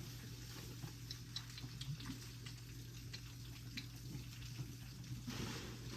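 Goat kid suckling milk, faint wet sucking clicks and smacks, over a steady low hum. A soft rushing noise rises near the end.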